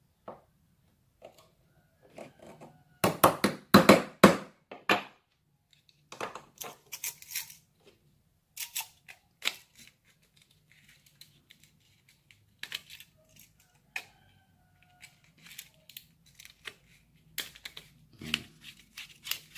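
Spring-loaded desoldering pump (solder sucker) being cocked and fired by hand: a series of sharp clicks and snaps, loudest in a cluster about three to five seconds in, then scattered clicks. It is a cheap pump that the repairman calls broken.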